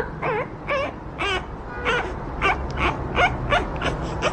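French bulldog puppy giving a quick string of short, high yips and whimpers, about a dozen in a few seconds, some bending up or down in pitch.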